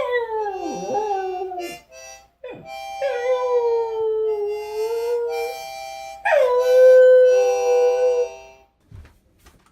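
A dog howling along to a harmonica: three long howls, each starting high and sliding down, over steady held harmonica chords.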